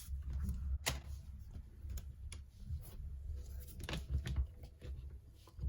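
Scattered light clicks and knocks of plastic laptop parts being handled as the screen assembly is worked free of its hinges from the base, over a steady low hum.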